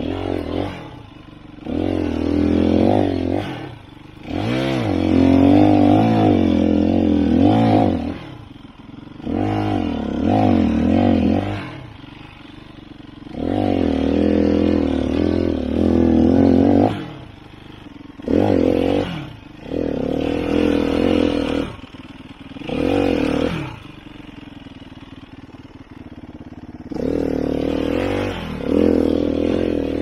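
Sherco 3.0i F 300 cc four-stroke single-cylinder enduro motorcycle engine revved in repeated short bursts, its pitch rising and falling within each burst, dropping back to a low idle in between while the bike is ridden slowly over steep, rocky ground.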